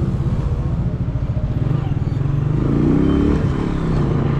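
Motorcycle engine running while riding slowly in traffic, with a brief rise and fall in revs about three seconds in.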